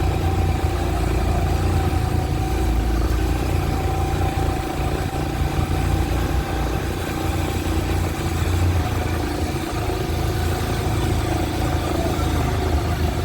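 A motor vehicle's engine running steadily, with a low rumble and a constant hum.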